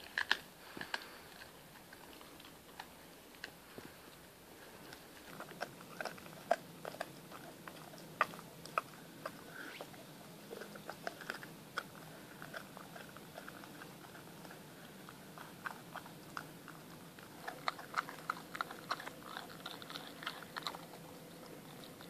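Dog gnawing on a raw shank from a young goat, its teeth biting and crunching through the still-soft bone in irregular bouts of sharp crunches, busiest near the end.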